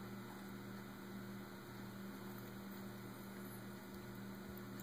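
Steady low electrical hum with faint hiss, and nothing else happening: quiet room tone.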